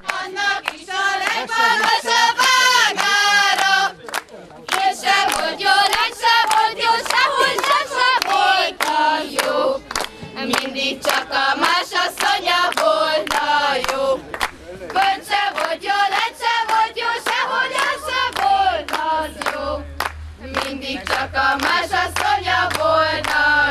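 A group of young women singing together and clapping along in a steady rhythm.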